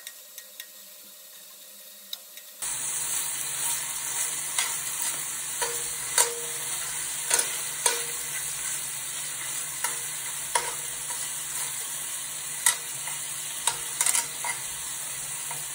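Marinated beef sizzling and frying in a stainless steel pan, with metal tongs clicking against the pan now and then as the pieces are stirred and turned. The sizzle comes in suddenly about two and a half seconds in; before that there are only a few light ticks.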